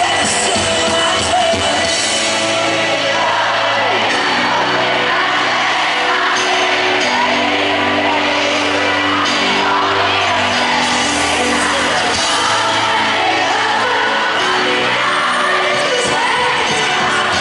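Live pop band playing in an arena, with a male lead vocal sung into a handheld microphone and amplified over the PA, and the crowd screaming and cheering throughout.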